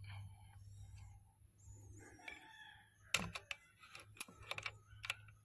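A single shot from a CDO PCP air rifle with a Lothar Walther barrel, a sharp crack about three seconds in, followed by several quick sharp clicks. A rooster crows faintly in the background before the shot.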